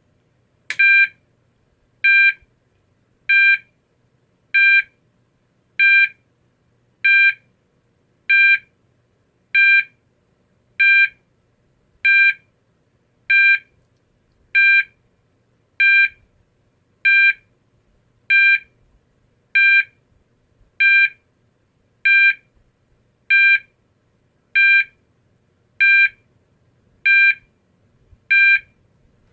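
GE AS363 fire alarm sounder playing its 800-hertz intermittent tone: short, even beeps about a quarter-second long with roughly a second's pause between them, about two dozen in a row.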